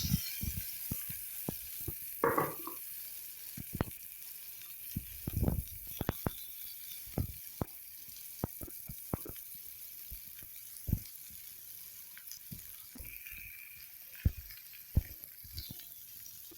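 Sliced onions sizzling in hot oil in a kadai, a steady hiss that slowly eases, with many scattered clicks and knocks.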